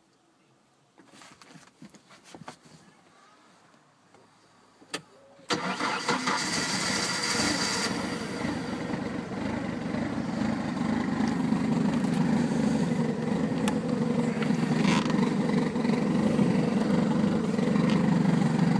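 Bayliner Capri's Ford 2.3-litre (Pinto) four-cylinder sterndrive engine started on the key: a click about five seconds in, then it catches suddenly and runs steadily.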